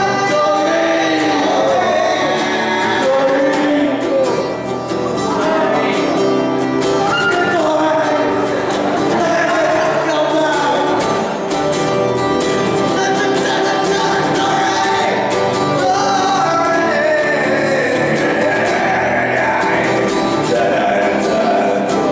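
Acoustic guitar strummed steadily while a man sings over it, live through microphones.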